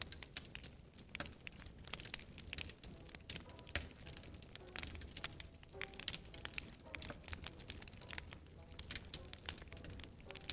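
Wood fire crackling in a fireplace, with many irregular sharp pops and snaps over a low, steady rumble.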